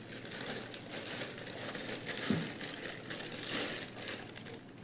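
Plastic packaging crinkling and rustling in irregular bursts as a sewing machine's power cable and foot pedal are unwrapped, with a soft knock about two seconds in.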